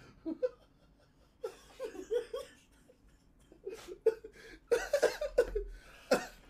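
Men laughing in short, broken bursts with breathy gaps between, loudest about five seconds in.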